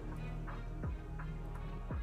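Soft background music with a steady beat of deep thumps, about one a second, over sustained low notes.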